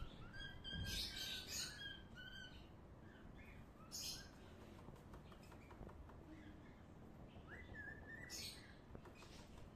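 Small birds chirping faintly in short clusters: one about a second in, another near four seconds, and a rising call followed by more chirps near the end.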